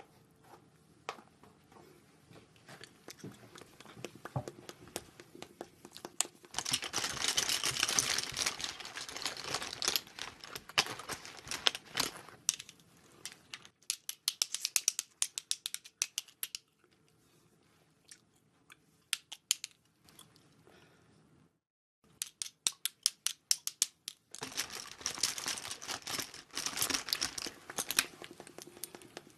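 Close-miked crinkling and tearing as makeup items are handled, with quick runs of small clicks and taps. The sound comes in bouts, with a quieter stretch a little past the middle.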